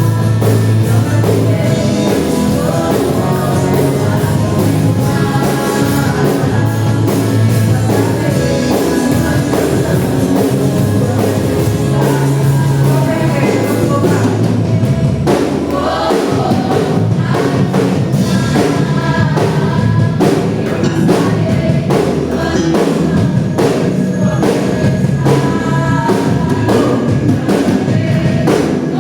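Gospel worship song: voices singing over a band with a drum kit.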